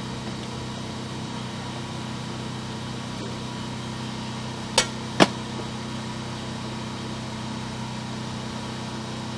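Steady machine hum from a running motor, with two sharp clicks about five seconds in, half a second apart.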